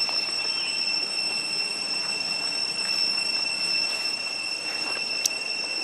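Cicadas droning: a steady high-pitched whine, with one sharp click about five seconds in.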